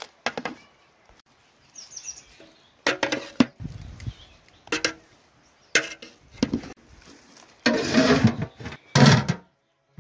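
Long-handled metal spatula scraping and knocking against the inside of a large metal cooking pot as a thick batch of spiced potatoes and coriander is stirred. The strokes are short and irregular, and the loudest come near the end.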